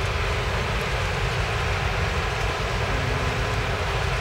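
Work train's flatcars rolling past close by: a steady rumble of steel wheels on rail.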